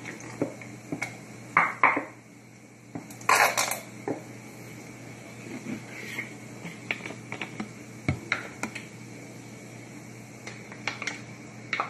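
Ketchup being squeezed from a plastic squeeze bottle and then handled from a large jug and measuring cup over a frying pan: scattered clicks and knocks of plastic and cookware, a few short noisy squirts early on, and one sharp knock about eight seconds in.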